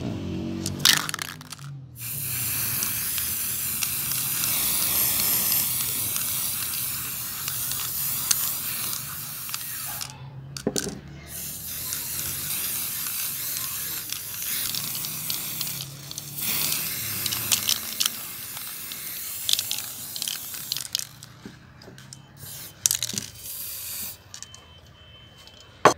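Aerosol spray paint can spraying: a steady hiss in three long bursts of several seconds each with short breaks between, then a few short spurts near the end.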